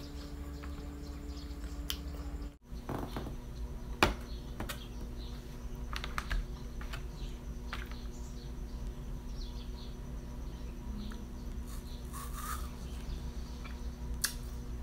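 Clear plastic clamshell fruit container clicking and crinkling as small apples are picked out of it: a few sharp clicks, the loudest about four seconds in, over a steady low hum.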